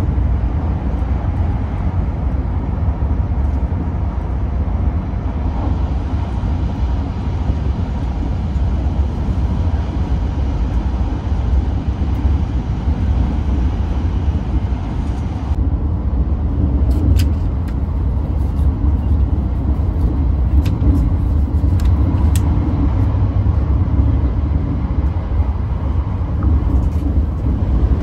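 Steady low rumble of a Hayabusa Shinkansen running at speed, heard inside the passenger car. About halfway through, the upper hiss drops away and a few faint clicks follow.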